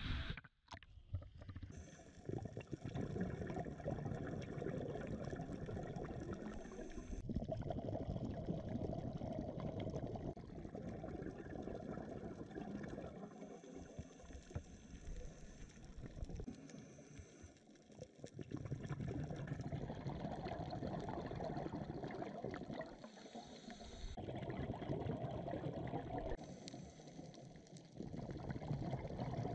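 Muffled underwater rushing and bubbling heard through a GoPro's waterproof housing during a scuba dive. The sound is steady but shifts abruptly several times.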